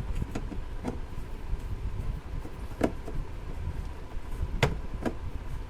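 A few light knocks and clicks as the plastic parts of a Symphony 22i air cooler are handled and fitted in place by hand, over a low steady rumble.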